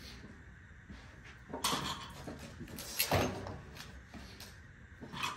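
A long steel pipe being shifted on concrete and set against a wooden beam, giving a few sharp knocks and clatters, the loudest about a second and a half and three seconds in, with another near the end.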